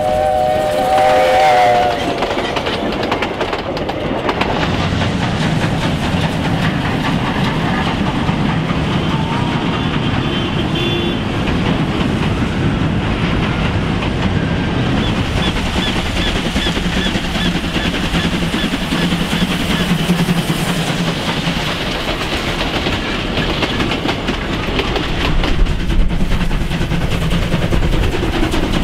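South African Class 19D steam locomotive's whistle sounding a steady chord of several tones that cuts off about two seconds in, followed by the locomotive and its train of coaches running steadily past.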